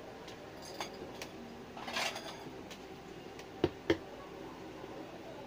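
Kitchen mixing sounds: a wire whisk and bowls clinking lightly as liquid ingredients are poured into flour and cocoa and stirred in. There is a short rushing scrape about two seconds in, and two sharp knocks of utensil on bowl a little after three and a half seconds.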